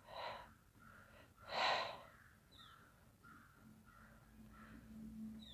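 A puppy snorting with her nose in the snow: two short breathy snorts about a second and a half apart, the second the louder, and a fainter one near the end.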